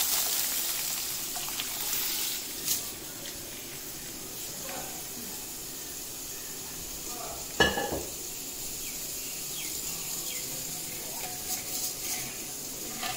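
Hot tempering of mustard seeds, dried red chillies and curry leaves in oil sizzling as cooked dal is poured over it; the hiss is loud at first and dies down within a few seconds to a faint simmer. One sharp knock about halfway through, and a few light clinks of a spoon in the metal pan near the end.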